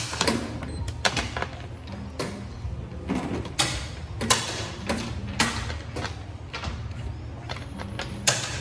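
Quick, uneven series of about a dozen sharp wooden clacks from a fast xiangqi game: pieces set down hard on the board and chess-clock buttons pressed. A steady low hum runs underneath.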